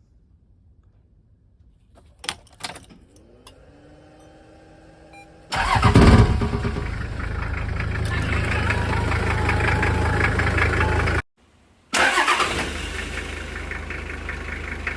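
Toyota Land Cruiser 70 engine being started: a couple of clicks and a faint rising whine, then the engine catches about five seconds in and settles into a steady idle. It breaks off for a moment near eleven seconds and is heard running again after.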